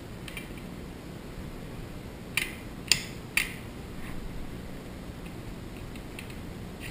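Shotgun parts clicking together as the gun is reassembled: three sharp metallic clicks about half a second apart, a little over two seconds in, and another at the very end, over a low steady hum.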